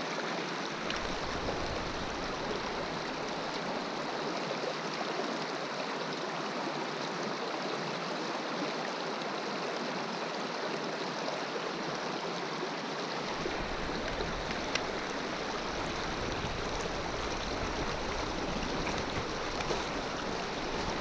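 Steady rush of river current running over rocks, with one brief faint click about fifteen seconds in.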